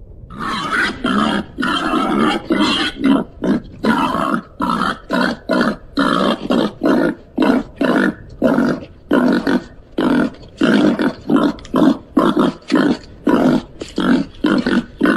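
Babirusa grunting: a long, fast series of short, rough grunts, about two a second, starting just after the opening moment.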